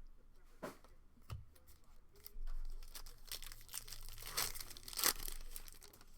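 Trading-card pack wrapper being torn open and crinkled: a few scattered clicks, then a stretch of ripping and rustling in the second half, loudest about four and five seconds in.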